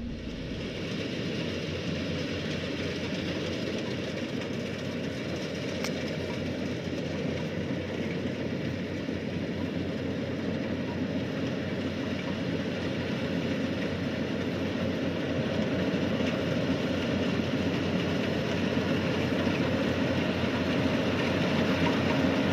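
Yanmar rice combine harvester running steadily, its diesel engine and machinery a dense even drone that grows slowly louder.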